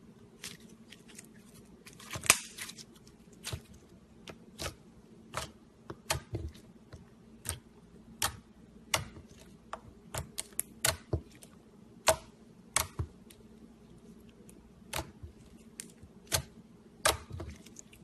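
Slime being worked by hand, giving short, sharp clicks and pops at an irregular pace of about one or two a second, the loudest a couple of seconds in.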